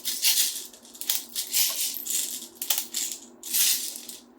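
Plastic airsoft BBs rattling in about five short bursts as a pistol magazine is loaded with BBs.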